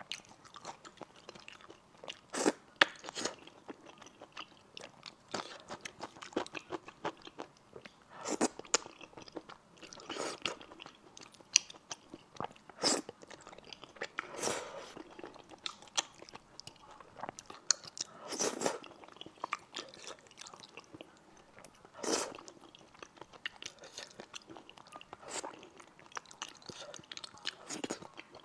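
Close-miked eating of spicy stir-fried rice noodles: wet chewing and mouth clicks, with several short slurps as strands of noodle are sucked in.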